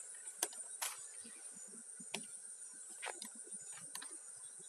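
Night insects calling, a steady high-pitched cricket chorus, broken by a few sharp clicks.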